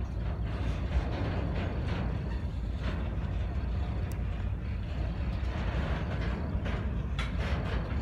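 Freight cars rolling past on steel wheels: a steady rumble with sharp clanks and clicks from the wheels and trucks, and a brief high-pitched squeal about four seconds in.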